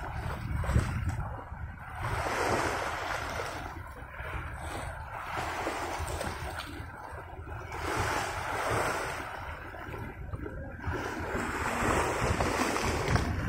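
Small sea waves washing onto a stony shore, swelling and fading every two or three seconds, with wind rumbling on the microphone.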